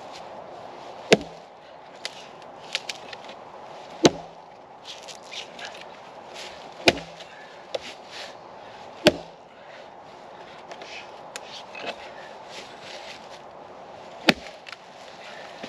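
Hatchet chopping into a soft, punky rotten log: five sharp strikes a few seconds apart, with lighter knocks between them.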